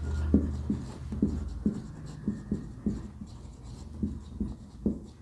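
Handwriting with a pen or marker: short, uneven strokes tapping and scratching on the writing surface, about two or three a second.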